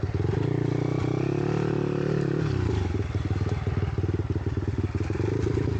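Monkey bike's small single-cylinder engine running under way: it revs up just after the start, holds the revs for about two seconds, then drops back at about two and a half seconds to a steady lower run.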